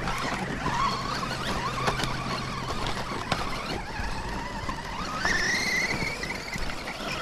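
RC truck's 2600 kV electric motor and geartrain whining as it drives up a loose dirt trail, the pitch wavering with the throttle, then jumping higher and rising about five seconds in as it speeds up. Tyres scrabble over dirt and stones with a few small clicks.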